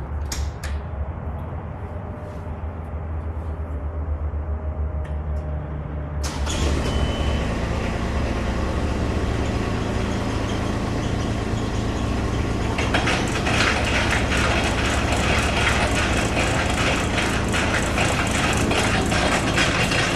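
Avant compact loader's engine running, picking up and getting louder about six seconds in. From about thirteen seconds the hydraulically driven snowblower augers are turning, adding a fast rattle, with no sign yet of the augers striking the bolts of the newly fitted UHMW cutting edge.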